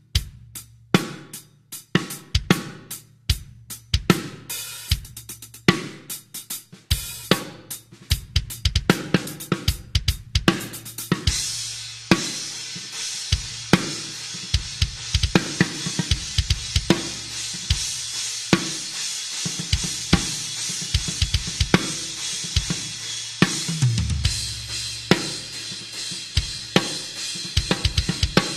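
Drum kit played with Centent Mist Pro cymbals: separate hits and fills for about the first ten seconds, then a beat under a continuous ringing cymbal wash for the rest.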